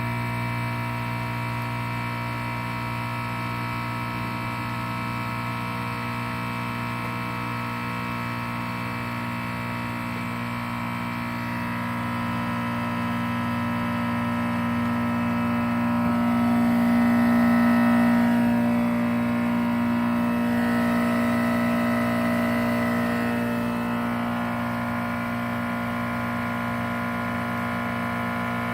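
Outside compressor unit running with a steady low electrical hum and a stack of higher machine tones. About halfway through it swells louder, with a wavering higher whine that fades back down a few seconds later.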